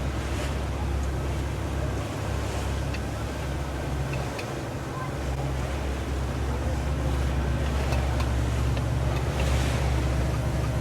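A boat's motor running steadily underway, with water rushing past the hull and wind buffeting the microphone; a few brief splashy hisses come and go.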